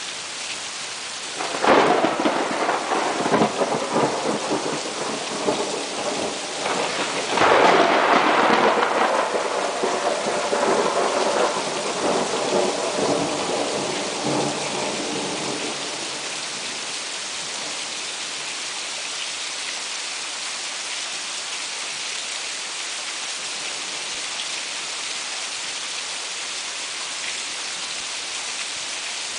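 Steady heavy rain falling, with two loud claps of thunder that start suddenly about a second and a half in and again about seven seconds in, each rolling on and fading out, the second dying away about halfway through.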